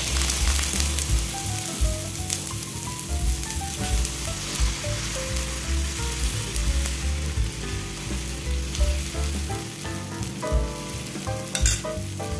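Ragi dosa batter sizzling on a hot, oiled dosa tawa as it is poured and spread out in circles with a steel ladle.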